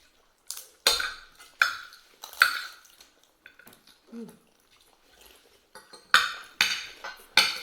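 Metal cutlery clinking and scraping against a plate while eating: a few sharp clinks in the first couple of seconds, a pause, then another quick run of four clinks near the end.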